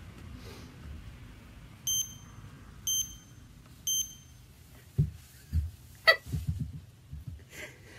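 Countdown sound effect: three short, identical high electronic beeps a second apart. Then a few soft thumps and a brief high squeak.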